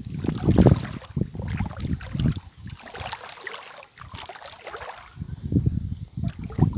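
Wading through shallow seawater: irregular splashes of feet moving through the water. Low rumbles of wind on the microphone are strongest at the start and again from about five seconds in.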